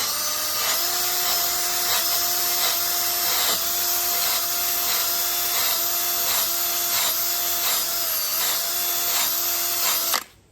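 Power drill spinning a Velcro-backed sanding pad flat against a curb-rashed wheel rim, running at a steady high whine that dips slightly in pitch at regular short intervals as the pad bears on the metal. It cuts off suddenly near the end.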